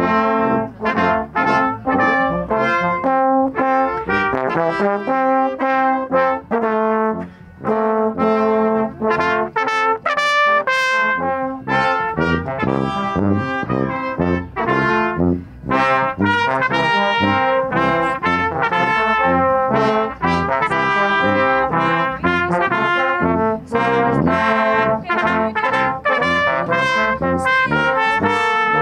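Small brass band playing a tune live, trumpets and trombones together, with notes changing in quick succession.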